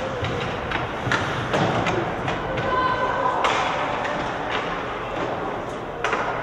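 Ice hockey play in an arena: several sharp knocks of the puck and sticks against the boards and ice, over a background of voices echoing in the rink.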